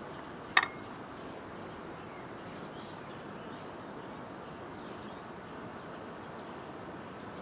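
A single sharp metallic clink about half a second in, from a metal utensil being handled, over a steady outdoor background hiss with a few faint chirps.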